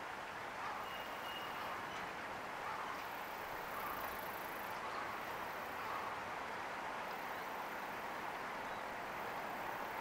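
Steady rushing background noise with no distinct calls or knocks, holding at an even level.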